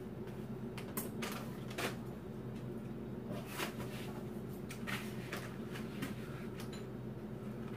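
Chopsticks and a metal ladle clinking and scraping against a shallow pan and small dishes, in short scattered clicks, over a steady low hum.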